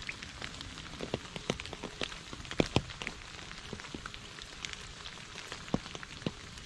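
Steady rain falling on a shallow puddle and wet leaves, with many separate drops splashing into the water at irregular moments, a few of them sharply louder.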